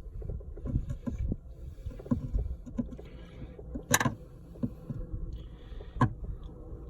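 Scattered knocks and clicks of hand tools and handling as the mounting bolt of a Porsche Boxster's immobilizer unit, on the floor under the driver's seat, is worked loose. Two sharp clicks come about four and six seconds in.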